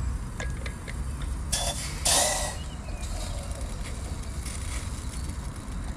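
A few small clicks, then two short rasping hisses about one and a half and two seconds in, the second the loudest, as spice is handled and added over a camping kettle of steaming water on a gas stove. A steady low rumble runs underneath.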